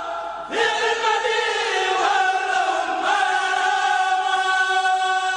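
A group of voices chanting in long, held notes that change pitch every second or two, with a short break about half a second in.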